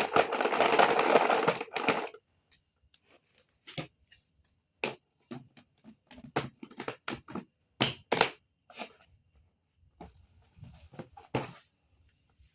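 Dry snacks poured into a jar, a rattling rush lasting about two seconds, followed by a string of separate clicks and knocks.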